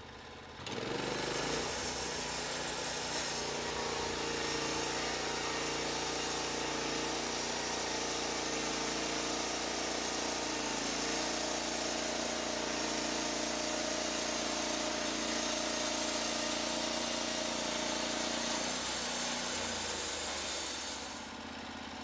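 Norwood LumberPro HD36 portable band sawmill sawing a board off a log: the engine hums steadily under load beneath the hiss of the band blade cutting through the wood. It comes in suddenly about a second in and drops away near the end.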